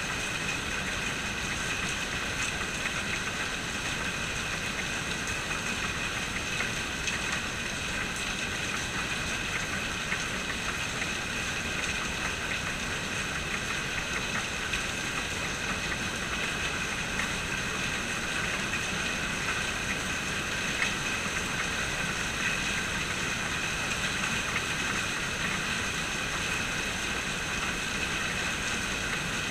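Steady rain falling, with many small drops ticking on hard surfaces.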